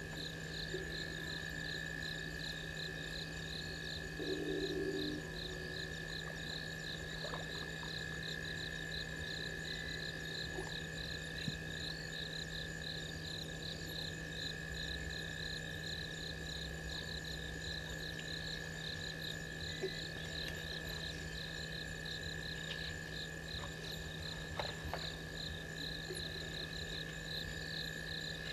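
Night-time chorus of frogs and insects at a waterhole: a steady high trill with a higher chirp pulsing evenly over it, and a short louder low-pitched call about four seconds in.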